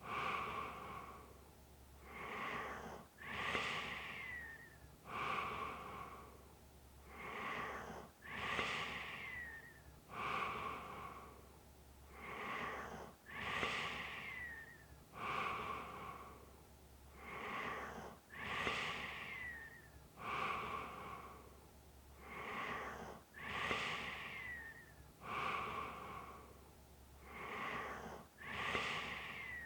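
Snoring, about one breath cycle every five seconds. Each loudest breath ends in a light whistle that falls in pitch.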